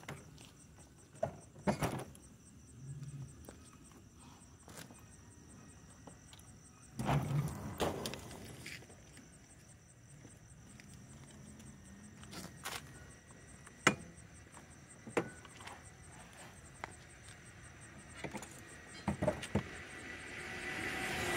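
Night insects chirping steadily in the background. Scattered sharp clicks and knocks come through it, with a louder cluster of thumps about seven seconds in. Right at the end a louder sound begins to build.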